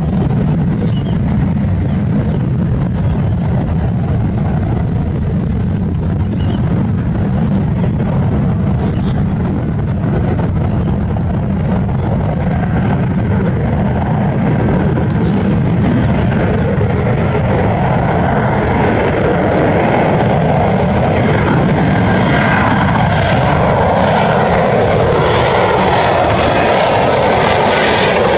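F-35B's Pratt & Whitney F135 jet engine and lift fan running loud in a hover, a steady deep roar. From about halfway the roar grows louder and brighter as the jet moves into forward flight, and near the end its tones slide downward.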